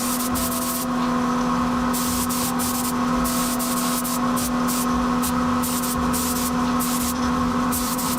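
Primer being sprayed onto a motorcycle frame in repeated short bursts of hiss, over a steady hum.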